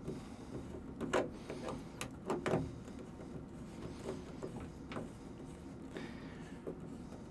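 Black plastic tub drain-and-overflow pipe fittings being handled and hand-tightened: a few quiet clicks and knocks of plastic, most of them between about one and two and a half seconds in.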